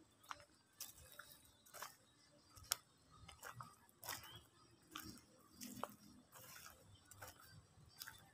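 Near silence with faint, short clicks of footsteps on a dirt path, a little under a second apart.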